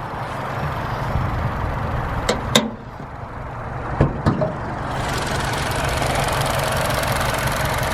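Vauxhall Cascada petrol engine idling steadily, with a few sharp clicks and knocks about two and four seconds in. From about five seconds in, the engine sound becomes louder and fuller.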